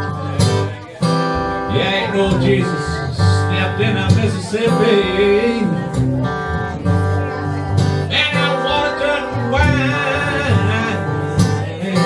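Acoustic guitars playing a slow blues, a low bass pulse under plucked and strummed chords, with a melody line that bends up and down in pitch over it.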